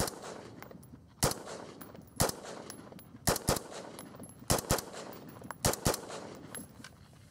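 Kel-Tec RDB-C semi-automatic bullpup rifle in 5.56 firing about nine shots at an uneven pace, several of them in quick pairs about a fifth of a second apart.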